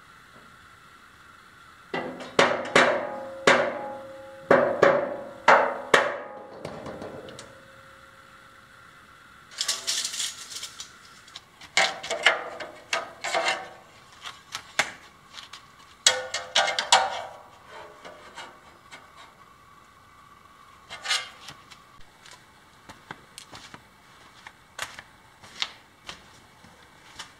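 Metal knocks and clanks on a square-tube metal frame being worked square, in quick bursts of several blows that leave a ringing tone behind them. The blows come between about two and seven seconds in and again between ten and seventeen seconds in, then thin out to a few scattered taps.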